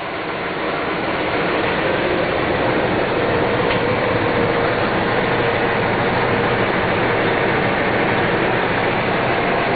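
Cummins ISX 475-horsepower diesel engine in a Peterbilt 387 idling steadily, getting louder over the first couple of seconds and then holding level.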